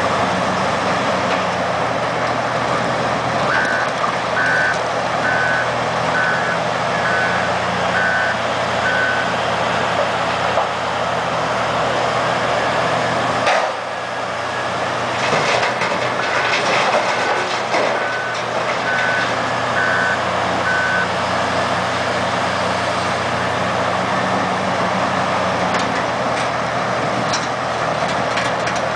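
Komatsu WA600 wheel loader's diesel engine running hard as it works a granite pile, its backup alarm beeping steadily, about one beep a second, in two runs while it reverses. About halfway through, a burst of clattering as rock from the bucket is dumped into the steel bed of a haul truck.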